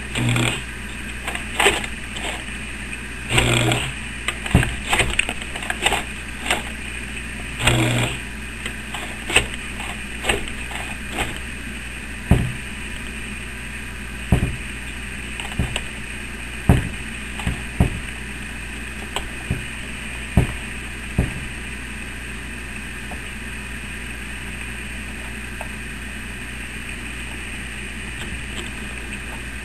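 Sewing machine bar-tacking through a thick sheath belt strap, with short bursts of the machine running and scattered clicks and knocks as the needle punches through and the work is shifted by hand, over a steady hum. The clicking stops about two-thirds of the way through, leaving only the hum.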